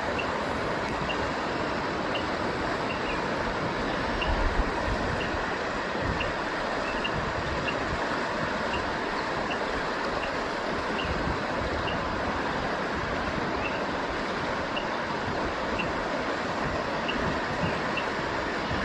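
Steady rush of flowing river water, with short high chirps repeating every second or so.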